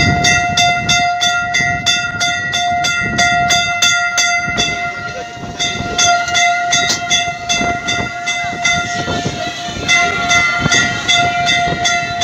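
Toy train's sound system playing a steam-train effect: a steady whistle-like tone over a fast, even chugging beat. The chugging breaks off for about a second midway, then resumes.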